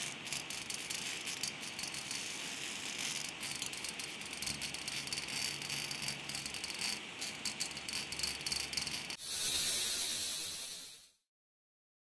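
Spark-and-laser sound effect for a logo animation: continuous crackling and hissing as the sparks trace the logo, then about nine seconds in a brighter swell that fades away over about two seconds.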